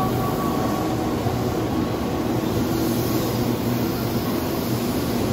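Tobu 8000 series electric train pulling out of the station at low speed: a steady running hum from its motors and wheels, with a few even tones.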